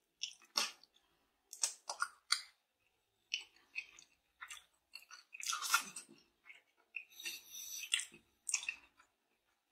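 A person chewing and gnawing braised oxtail meat off the bone, in irregular short bursts of mouth noise and clicks, loudest a little past halfway.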